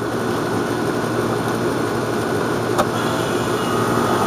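Goodman GSC13024 air-conditioning condensing unit running, newly installed and charged with R-22: the compressor and condenser fan make a steady hum, with one sharp click near the middle.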